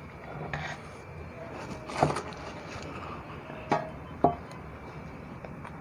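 A baked sponge cake in butter paper being turned out of its tin onto a wooden board: some paper rustling, then three short light knocks, about two, three and three-quarter, and four and a quarter seconds in.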